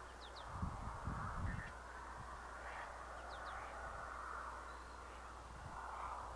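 Birds calling outdoors, with a pair of thin rising chirps near the start and another pair about three seconds in.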